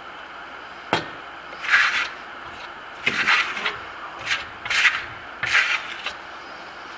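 Steel Venetian plaster trowel scraping wet Grasello lime plaster across a sample board in about six short, separate strokes.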